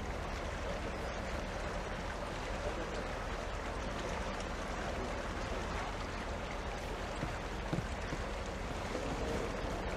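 Steady, even wash of water noise from a tour boat moving across a lake.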